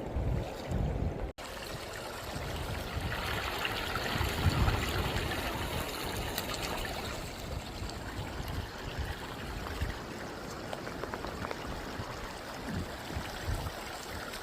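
River water running over rocks: a steady rushing, louder for a few seconds in the middle. The sound drops out for an instant about a second in.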